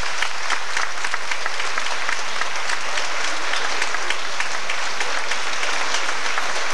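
Large audience applauding: a steady, dense clatter of many hands clapping.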